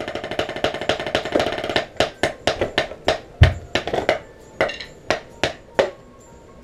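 Drumsticks played on a practice pad: a fast, dense run of strokes for about two seconds, then separate strokes about three a second with one heavy low thump partway through, stopping shortly before the end.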